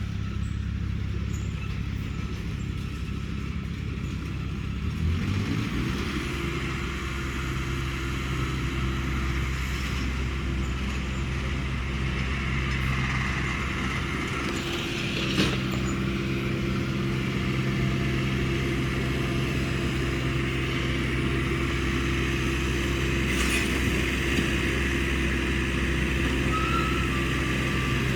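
Large engine running steadily, rising in pitch as it revs up about five seconds in and then holding there. A single sharp knock comes about halfway through, and a high beeping tone starts near the end.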